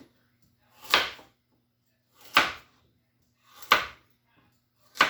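Kitchen knife cutting through a carrot and striking the cutting board, four single cuts at an even pace about a second and a half apart.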